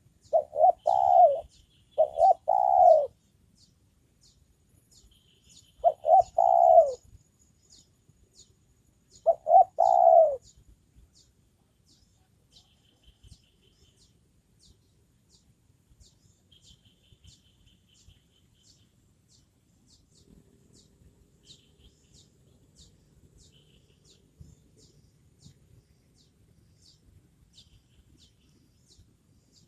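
Decoy spotted dove (tekukur) cooing in four short phrases over the first ten seconds, each phrase two or three falling notes, then falling silent. Faint high chirps of small birds go on throughout.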